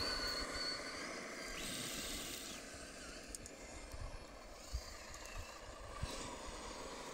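Faint whine of RC scale crawler trucks' electric motors and gearboxes as they creep over the forest floor, with a few soft low thumps.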